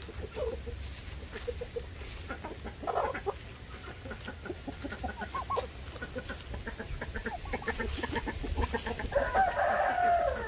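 Chickens clucking in short, repeated calls, with one longer, louder call about nine seconds in.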